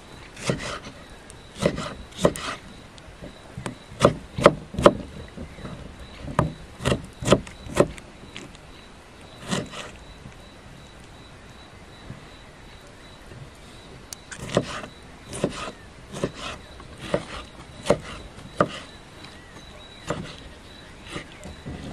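Small kitchen knife dicing peeled tomatoes on a wooden log-slice cutting board: irregular knocks of the blade on the wood, in two runs with a pause of a few seconds in the middle.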